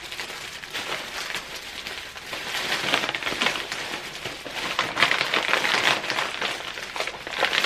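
Thin plastic bag crinkling and rustling as hands work at its knotted top, a continuous run of crackles.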